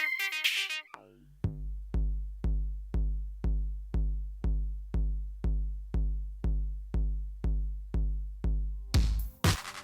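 Electronic dance music from a drum machine: the synths drop out about a second in, and after a short gap a bare kick drum beats alone at about two hits a second. Near the end the full track with hi-hats and synths comes back in.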